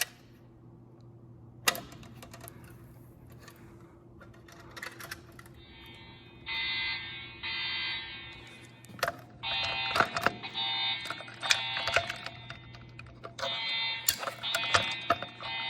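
EST Genesis speaker/strobes sounding a pitched alarm tone, the 'masked integrity' tone, which comes in about five seconds in as two short bursts and then longer stretches. Under it there is a steady low hum and scattered clicks.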